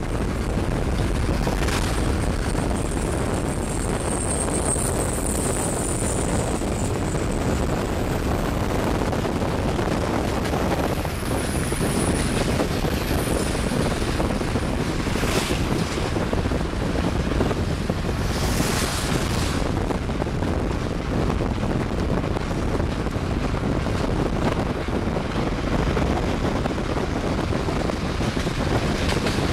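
Steady rush of car tyres on a wet road mixed with wind noise, heard from a moving car. Two short hissing swells come past the middle.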